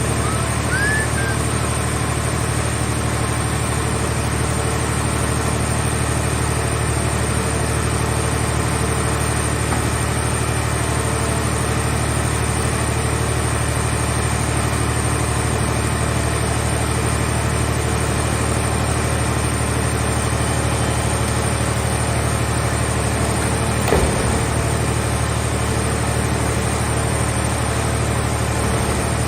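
Engine of a scrap car-body baler running steadily at an even speed, with one sharp knock about 24 seconds in.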